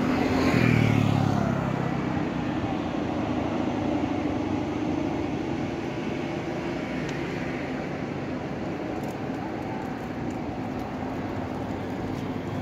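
Road traffic: a vehicle's engine goes by loudest about a second in, then a steady low engine hum carries on.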